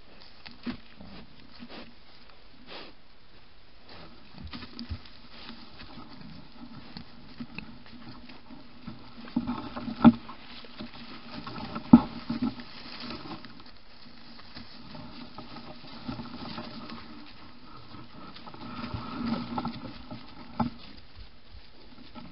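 Wild boars rooting and shuffling through dry leaf litter: steady rustling and scattered snaps, with low grunting in places. Two sharp cracks, about ten and twelve seconds in, are the loudest sounds.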